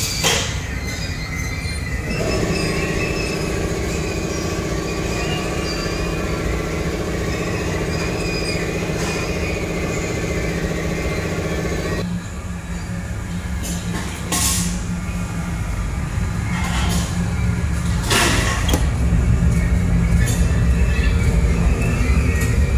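A drum spray-painting conveyor line running with a steady mechanical rumble. A whine rides over it for the first part and stops partway through. Two short hissing bursts come later.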